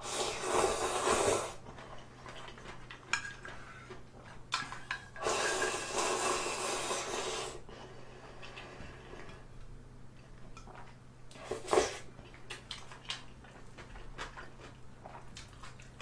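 Instant ramen noodles being slurped: one long slurp at the start and another about five seconds in, lasting a couple of seconds. Between and after them come chewing and light clicks of chopsticks against a metal bowl.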